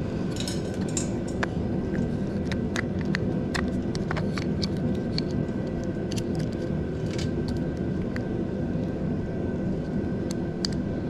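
Scattered light metallic clicks and taps from handling the motorcycle throttle cable and its fittings, over a steady background hum.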